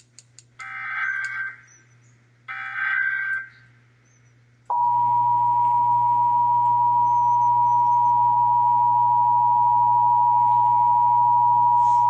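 Emergency Alert System broadcast: the last two of the three digital SAME header bursts, each a raspy data screech lasting about a second, then about a second later the two-tone EAS attention signal (853 and 960 Hz) starts and holds steady and loud to the end.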